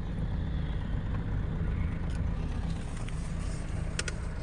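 Mahindra XUV500 driving, with steady engine and road rumble heard from inside the cabin. A brief sharp click comes near the end.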